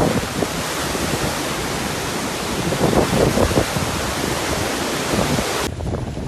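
Hurricane wind and driving rain: a dense, steady rushing noise with gusts buffeting the microphone about three seconds in. Near the end it cuts abruptly to a duller wind-blown recording.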